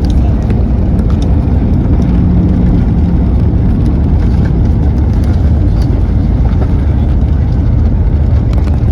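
Loud, steady low rumble of engine and airflow noise inside the cabin of an Airbus A320neo, with a brief steady hum about two seconds in and a few faint clicks.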